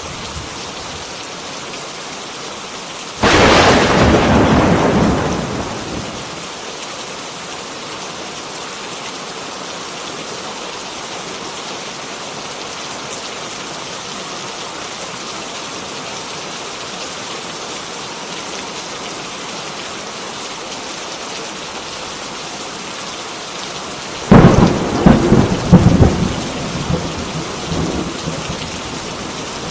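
Heavy rain falling steadily, with two thunderclaps. The first is a sudden crack about three seconds in that fades over a few seconds; the second, near the end, is a crackling peal with several loud peaks that rumbles away.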